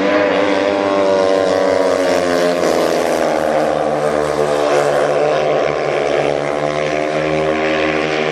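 Speedway motorcycles racing flat out, their 500 cc single-cylinder methanol engines running at high revs with the pitch rising and falling through the bends.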